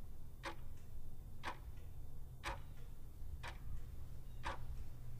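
Clock ticking faintly and steadily, about one tick a second.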